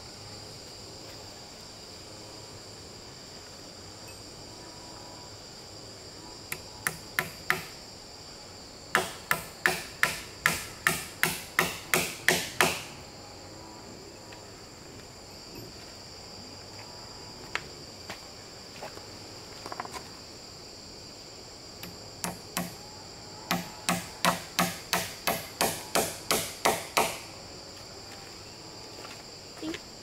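Hammer blows on the log wall of a chicken coop under construction, in three runs of quick, even strikes, about three a second. A steady, high-pitched drone of insects runs underneath.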